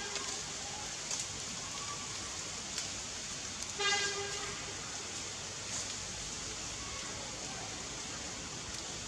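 Baby macaque giving one short, high, tone-like cry about four seconds in, over a steady background hiss. The tail of a similar cry is heard at the very start.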